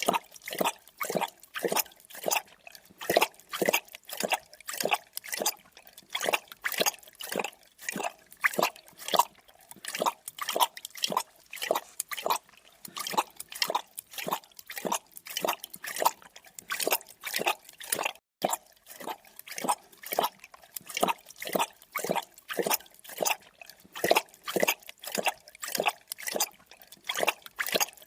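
A creature drinking: rapid wet lapping and slurping strokes, about two to three a second, with a brief break about 18 seconds in.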